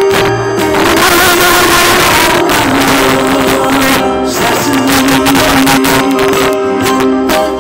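Live amplified Greek popular song: singers holding long notes over a band of bouzoukis and accordion.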